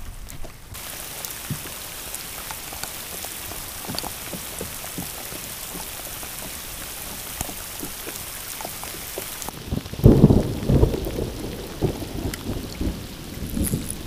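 Heavy thunderstorm rain falling on open water, a steady hiss that sets in about a second in. From about ten seconds in, loud low rumbling surges take over.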